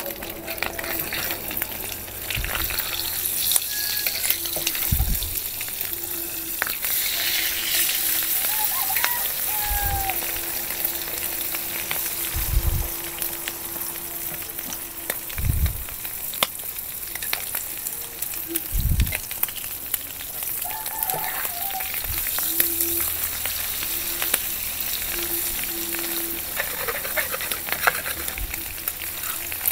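Beaten eggs with tomato, onion and garlic sizzling steadily in hot oil in a metal pan, with a metal spatula clicking and scraping against the pan as it stirs. A few dull low thumps come at intervals.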